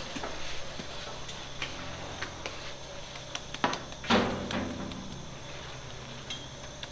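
Bakery handling noise as sangak dough is pressed out by hand on a long-handled oven peel: scattered light knocks and clatter, with one loud knock about four seconds in, over a steady low hum.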